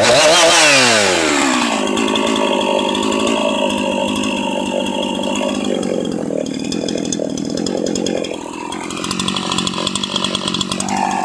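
Jonsered 2153 two-stroke chainsaw engine revved at the start, its pitch falling quickly back to a steady run. About eight seconds in, the running turns more uneven.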